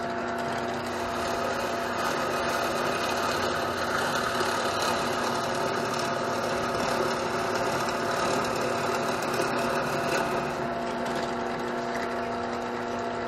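Benchtop drill press running steadily, its bit boring a deep hole into a 2x4 block of wood.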